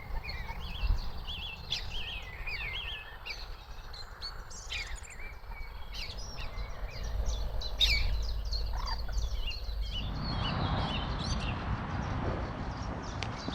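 Small birds singing and chirping in quick overlapping phrases, over a low rumble that broadens into a noisier hiss about ten seconds in.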